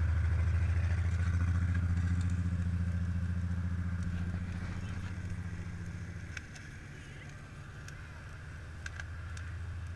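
An engine running at a steady idle, a low pulsing hum that slowly gets quieter and drops further about six and a half seconds in, with a few faint clicks near the end.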